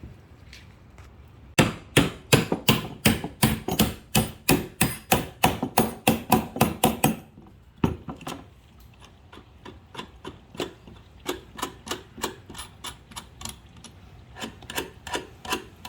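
Ratchet wrench clicking as it tightens the nuts on a U-clamp: a fast, even run of loud clicks, then after a short pause softer, slower clicking.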